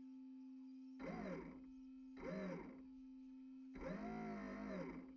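Small electric motor of an RC fireboat revving up and back down three times, the third burst the longest, over a steady hum.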